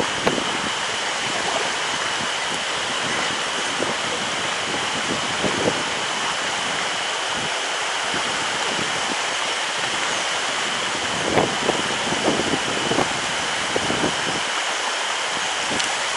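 Mountain stream rushing steadily over rocks, with a steady high-pitched note running above the water noise. A few brief splashes or knocks stand out about eleven to thirteen seconds in.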